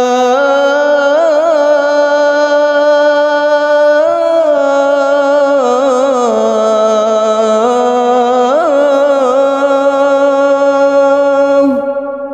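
Male muezzin singing the adhan, drawing out the 'hayya 'ala l-falah' phrase in one long ornamented line of held notes with wavering melodic turns. The voice stops just before the end, leaving a fading echo.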